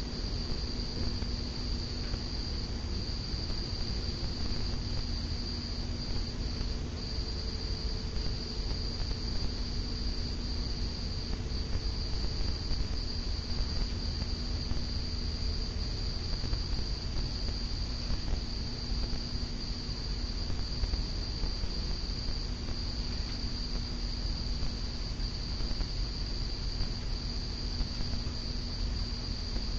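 SMC Laguna 52-inch ceiling fan running steadily, its motor giving a faint low hum, under a continuous high-pitched trill that does not change.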